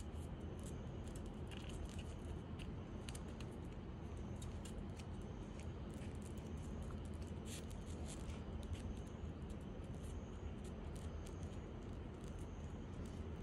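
A Shetland sheepdog's claws clicking irregularly on brick paving as it walks, over a steady low hum.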